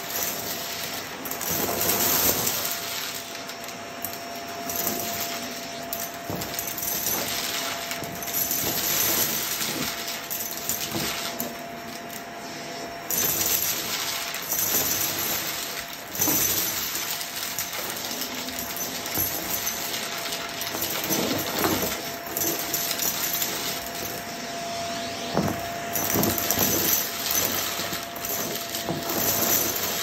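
Shark vacuum cleaner running over carpet with a steady whine, crunchy debris crackling and rattling as it is sucked up.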